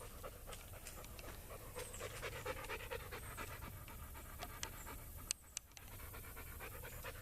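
Dog panting fast and steadily, breaking off briefly after a sharp click about five seconds in.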